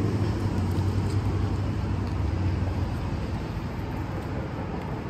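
Road traffic noise with a nearby motor vehicle's steady low engine hum, which fades away about halfway through.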